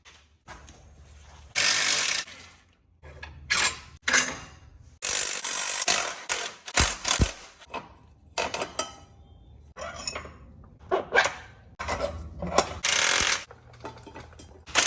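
Hand tools working on a side-by-side's suspension parts: a string of separate mechanical ratcheting and clanking bursts of varying length, with short pauses between them.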